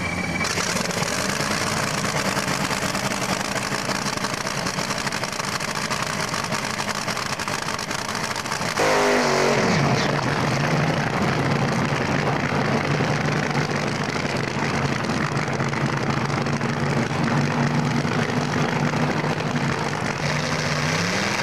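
Supercharged drag-racing engines running loud and rough. About nine seconds in, one engine revs down sharply after a burnout and settles into a steady low rumble at the starting line, then begins to rev up again near the end.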